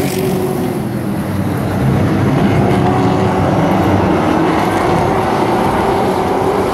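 Several short-track race trucks' engines running at racing speed as the pack passes on the oval, a loud steady drone that grows a little louder about two seconds in.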